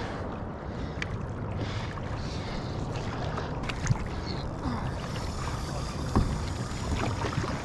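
Paddle strokes from a stand-up paddle board pulling through calm seawater, over a steady hiss of wind on the microphone.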